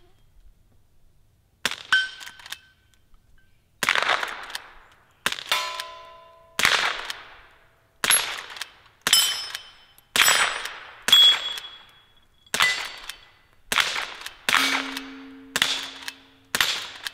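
Suppressed Henry Frontier threaded-barrel lever-action .22 rifle, fitted with a Silencer Co. Sparrow suppressor, firing CCI .22 Short rounds: over a dozen shots about a second apart. Each shot carries the crack of the bullet, which at about 1,105 feet per second is right on the edge of the sound barrier. Steel targets ring after several of the hits.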